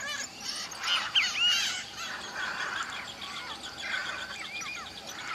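Wild birds calling. Short arched call notes come in two groups, about a second in and again near four seconds, over a fast, even series of high notes.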